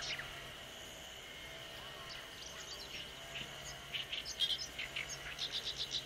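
Woodland birds chirping in quick rattling phrases over a steady high insect drone, with a faint low hum underneath. The chirping grows busier about two-thirds of the way through.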